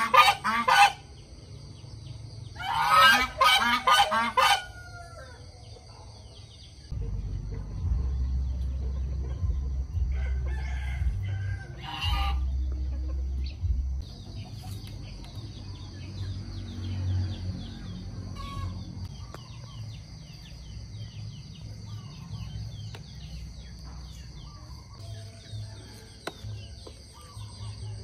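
Domestic goose honking loudly in the first second, then another harsh call of about two seconds about three seconds in. After that comes a quieter stretch with a low rhythmic thrum and a faint high steady drone.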